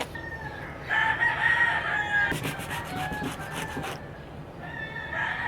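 A rooster crowing twice: one long crow about a second in and a second crow near the end that falls in pitch, with a rapid run of clicks in between.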